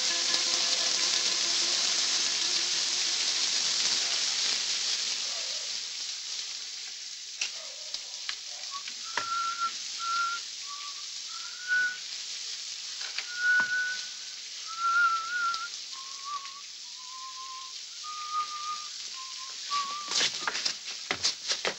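Rain falling steadily, fading after the first few seconds. Then a man whistles a short, wandering tune of single notes, with a few sharp clicks near the end.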